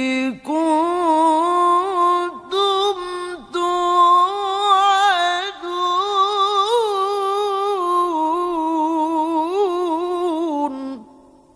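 A male qari reciting the Quran in a melodic, highly ornamented style: one long high phrase with wavering turns and a few brief breaks. It ends about eleven seconds in with the last note trailing off in echo.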